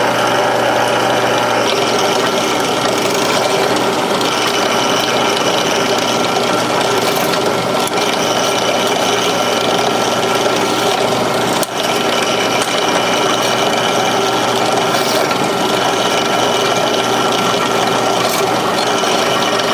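Electric drill motor running steadily while drilling out small pin holes in pocket-knife parts to take larger pins. Its sound dips briefly about halfway through.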